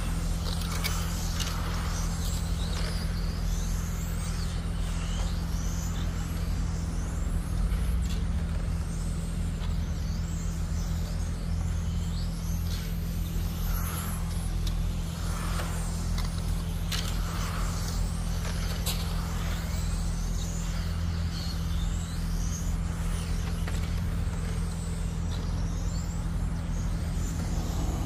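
Radio-controlled GT race cars racing round a track: many overlapping high-pitched motor whines rising and falling as the cars accelerate, brake and pass, over a steady low hum.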